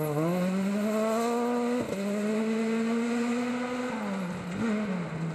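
Rally car engine at full throttle on a stage: its note climbs, dips very briefly about two seconds in, holds high, then drops away around four seconds in with a short rise before falling again.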